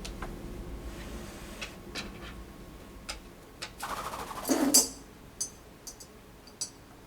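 Scattered light clicks and taps of a Senegal parrot handling a coin and its trick toy, with a louder clatter about four and a half seconds in and a few sharp ticks after it.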